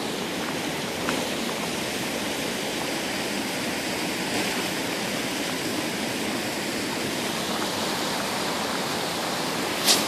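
Fast-flowing creek water rushing over rocks, a steady even rush.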